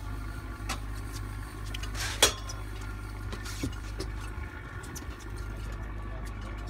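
Steady low hum of a fishing boat's engine, with scattered clicks and knocks on board; the loudest is a sharp click about two seconds in.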